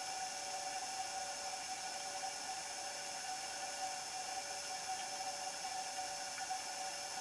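Steady hiss with a constant mid-pitched hum and fainter whines above it, unchanging throughout: the self-noise of an underwater baited camera recording inside its sealed housing.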